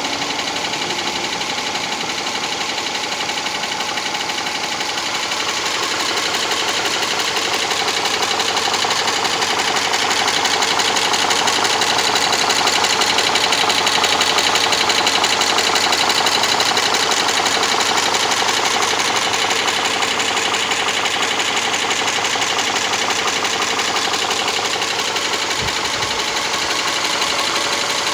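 Subaru Legacy 2.5 SOHC flat-four engine running with a fast, steady ticking; the cause of the tick is unknown to the owner.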